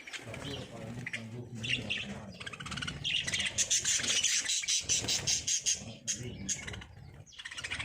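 Lovebirds chattering in a fast run of high chirps and twitters, densest and loudest in the middle.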